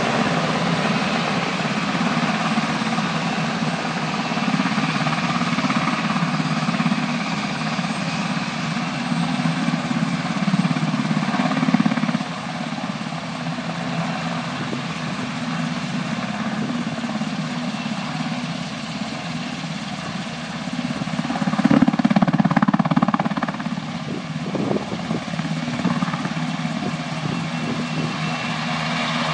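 UH-60 Black Hawk helicopters running, a steady rumble of rotors and twin turboshaft engines that swells louder about three-quarters of the way through.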